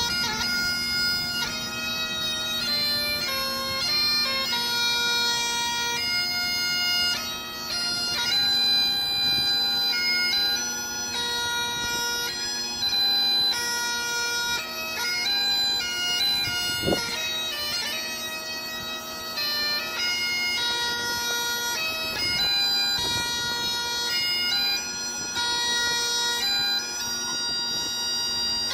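Bagpipes playing a melody over a steady, unbroken drone, the tune broken up by quick grace-note flourishes between its held notes.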